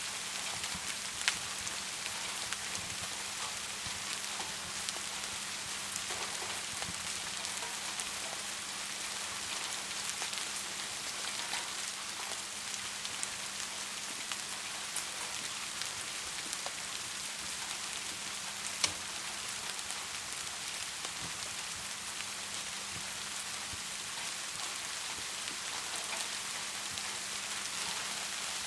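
Steady rain hiss with scattered small pops of a crackling wood fire, and two sharper, louder pops: one about a second in and one about two-thirds of the way through. A faint steady hum runs underneath.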